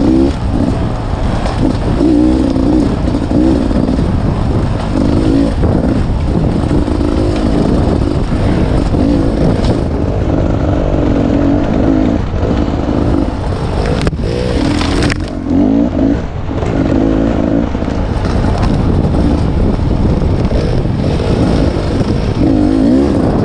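Dirt bike engine revving up and down over and over as it is ridden over rough trail, heard close from the rider's helmet. A brief hiss comes about fourteen seconds in.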